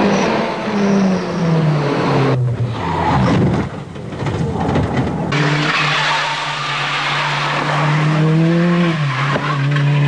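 Rally car engines running at high revs, rising and falling through gear changes, with tyres skidding. The sound changes abruptly twice as one clip cuts to the next.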